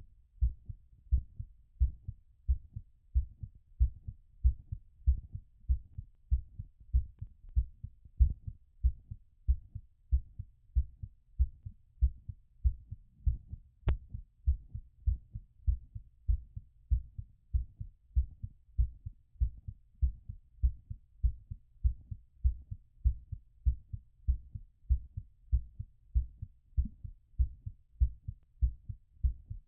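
Human heartbeat heard through a stethoscope: a steady, regular run of low lub-dub thumps from a heart recovering after exercise. A single sharp click comes about halfway through.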